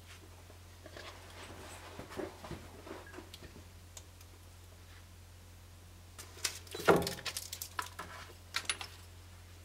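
Metal clinks and knocks from a wakizashi blade and its fittings being handled, with soft cloth rustling in the first half. A quick clatter of sharp clicks comes about seven seconds in and is the loudest part.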